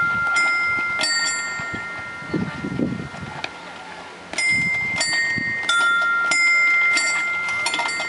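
Bell-like chime tones set off by stepping on the metal floor plates of a walk-on sound game, each striking suddenly and ringing on. Two come early, then after a pause of about three seconds a quicker run of about six follows.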